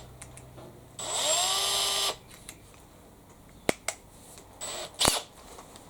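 Makita XPH07 cordless brushless hammer drill given a short trigger pull about a second in: the motor spins up with a rising whine, runs steadily for about a second and stops. A couple of sharp clicks follow later.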